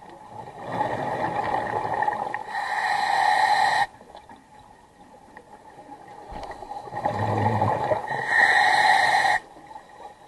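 Diver's scuba regulator breathing underwater: two long breaths, each building up over a few seconds and then cutting off sharply, with quieter pauses between.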